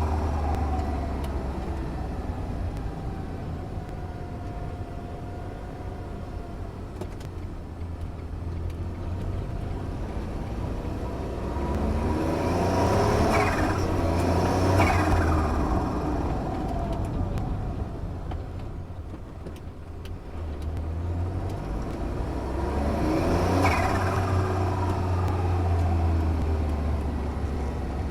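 A turbocharged engine idles with a low rumble and is revved up twice. Each time the turbo's whistle climbs with the revs, then falls away as the throttle closes and the blow-off valve and the external wastegate, which vents to the open air, dump their pressure.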